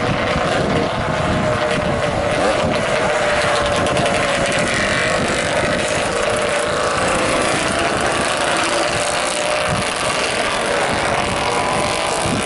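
Historic racing motorcycles passing one after another through a bend, their engines running loud, with the engine note rising and falling.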